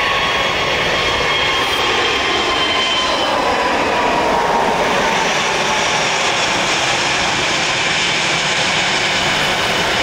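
Airbus A380's four Rolls-Royce Trent 900 turbofans at takeoff power as the airliner climbs past: a loud, steady jet roar with thin whining tones that slide slightly lower as it goes by.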